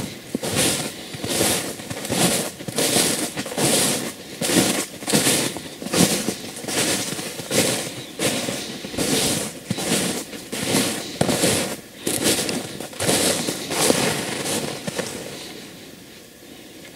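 Footsteps crunching through snow at a steady walking pace, about two steps a second, stopping near the end.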